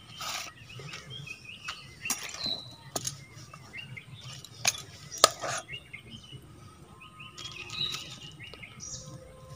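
Dry sal leaves rustling and crackling as they are handled, and a steel spoon clicking against a steel bowl as a sticky mixture is scooped out, a few sharp clicks in all. Faint bird chirps come and go in the background.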